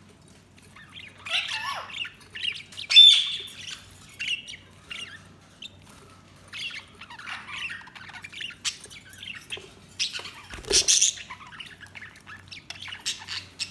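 Pet budgerigars chirping and warbling in irregular bursts, with a sharp, loud squawk about three seconds in. Near the end there is a brief rustling noise.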